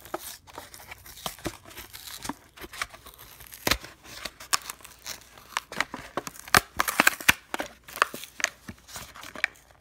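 Hot Wheels blister pack being torn open: the clear plastic blister pried and peeled off its cardboard backing card in a run of crinkles, crackles and tearing, with the sharpest snaps a little over a third of the way in and in a cluster about two-thirds through.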